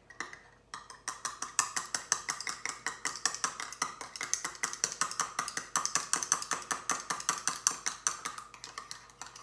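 An egg being beaten briskly in a bowl, the utensil clicking against the bowl in a fast, even rhythm of about ten strokes a second that starts about a second in and stops just before the end.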